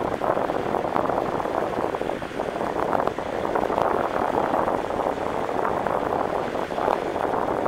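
A steady rushing noise of wind and choppy water, with a fine crackle throughout and no clear engine tone.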